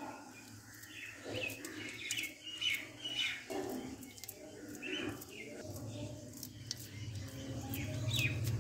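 Small birds chirping over and over in short high calls, with wet mud squelching and slapping as it is pressed and smoothed by hand. A low steady hum comes in about halfway through and grows louder.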